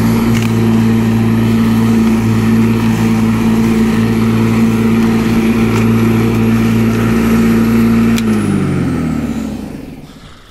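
Black & Decker 1800 W corded electric lawnmower running at a steady hum while cutting grass. About eight seconds in the motor is switched off and the hum winds down in pitch over a couple of seconds as the blade spins down.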